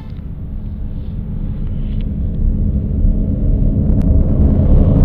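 A deep rumble, growing steadily louder.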